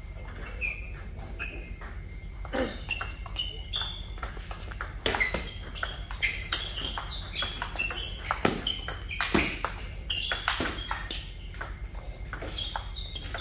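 Table tennis ball clicking rapidly off paddles and the table in a rally, with short high squeaks of shoes on the court floor between the hits.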